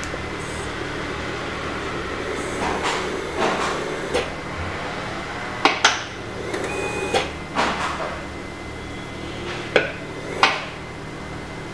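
Elisa 300 ventilator running its system test against a blocked circuit: irregular sharp clicks of its valves, each with a short hiss of air, over a steady hum. A brief high tone sounds a little past the middle.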